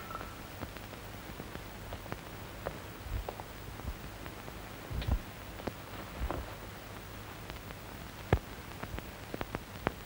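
Steady faint hiss with scattered light clicks and taps, and a few soft low thumps a few seconds in.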